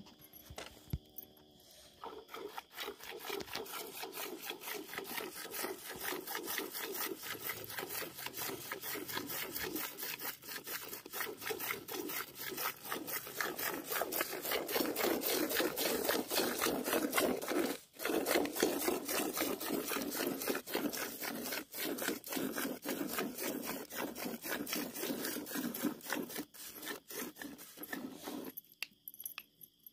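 Milk squirting from a cow's teats into a pail during hand milking: a fast, steady rhythm of swishing strokes from alternating hands. There is a brief break about two-thirds of the way through, and the milking stops shortly before the end.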